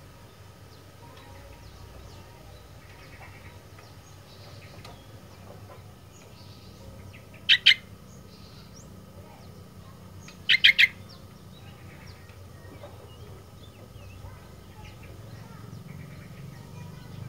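Sooty-headed bulbul (kutilang) calling: a loud quick two-note call about halfway through, then a loud three-note call a few seconds later, with faint chirps scattered over low background noise.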